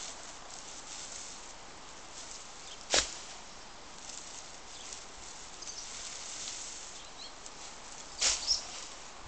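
Thatching straw rustling and crackling as it is handled on a thatched roof, with one sharp knock about three seconds in. Near the end a louder double rustling thud as a bundle of straw is thrown.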